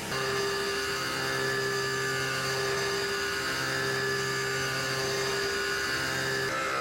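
CNC turning center running with a steady whine made of several fixed tones, changing to a different set of tones near the end.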